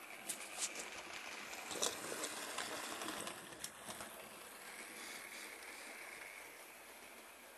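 Model railway train running along the track: a scatter of irregular clicks from the wheels over rail joints and points in the first half, then a faint steady whine.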